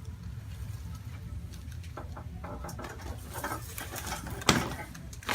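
A single sharp crack about four and a half seconds in, the audible pop of a neck joint under a chiropractic adjustment, with a smaller click just before the end. Faint rustling and a low hum come before it.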